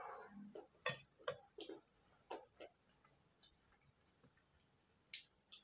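Soft, irregular clicks and smacks of eating at close range, about eight scattered through the stretch, the loudest about a second in.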